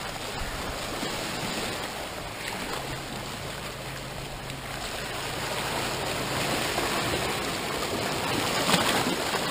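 Sea waves washing over rocks at the shoreline: a steady rush of surf that swells louder in the last few seconds.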